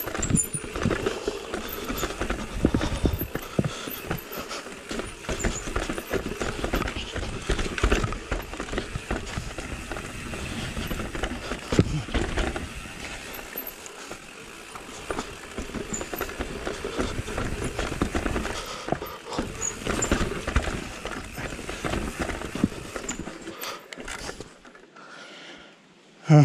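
Mondraker Level R e-mountain bike clattering down a rocky trail: tyres knocking over stones and the bike rattling in quick, irregular hits. It quiets down near the end.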